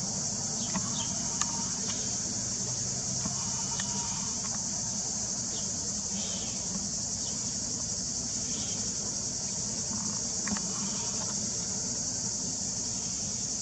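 Cicadas shrilling in a steady, unbroken high drone, over a low engine rumble from the approaching cruise ship, with a few faint chirps.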